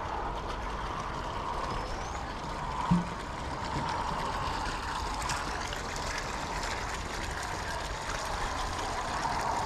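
Steady trickle and splash of water from a small garden-pond waterfall, with a single short knock about three seconds in.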